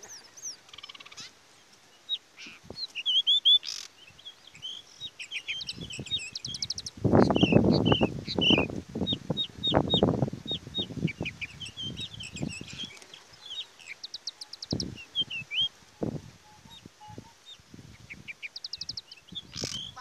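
Small songbirds chirping with many quick whistled notes and a few rapid trills. A burst of loud low rustling and thumps comes about seven seconds in and fades out by about thirteen seconds, with a few single knocks after it.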